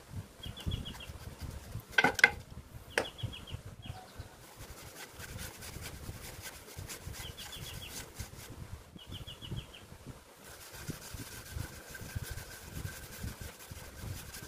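Sandpaper rubbing on a wooden bowl turning on a wood lathe, with a couple of sharp knocks about two seconds in. A small bird gives short high chirps four times, and a faint steady machine whine comes in about two-thirds of the way through.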